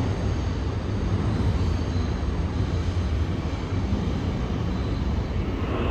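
Steady low rumble of a subway train approaching through the tunnel, heard in the station.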